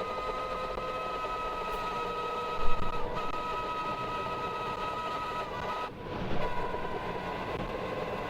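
Steady mechanical drone with several constant whining tones over a noisy rumble, with a brief knock about 2.7 s in and a short dip near 6 s.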